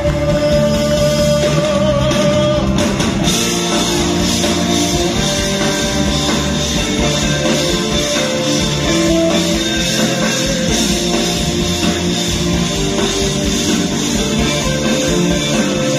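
Live band playing loud, upbeat music, with trumpet and saxophone playing together over drums and bass. The drums and cymbals come in harder about three seconds in.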